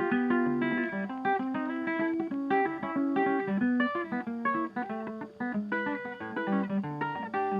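Background music: a plucked acoustic guitar playing a quick run of notes.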